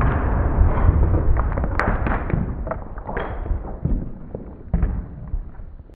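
Slowed-down sound of a small detonating-cord blast: a long, deep rumble fading over several seconds. Scattered clicks and knocks of flying debris run through it, with a sharper crack about two seconds in and another knock near the end.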